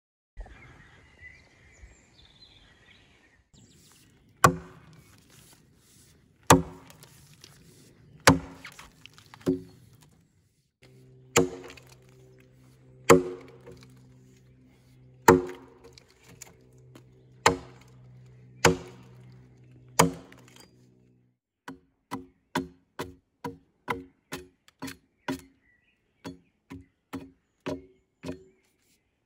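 Broad hewing axe chopping into a log: about ten heavy blows roughly two seconds apart, then a quicker run of lighter strokes, about two a second, in the last third.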